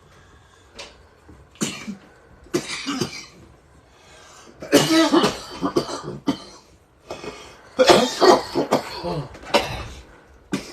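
A person coughing in several harsh bouts: two short coughs, then two longer coughing spells, and one last short cough near the end.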